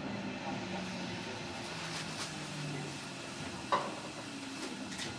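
Inside a JR Kyushu 305 series EMU at or near a standstill at a station: a low hum from the train's electrical equipment that shifts in pitch, with one sharp click about three and a half seconds in.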